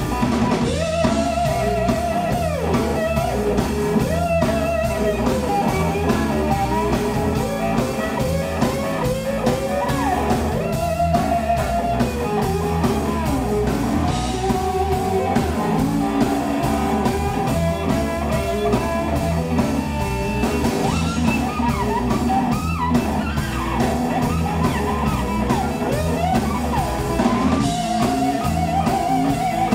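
Live blues band playing: an electric guitar lead of held, bending notes over bass guitar and a drum kit.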